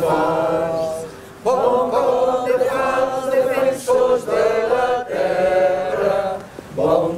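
A small group of people singing together unaccompanied, in long held phrases with a short break about a second in.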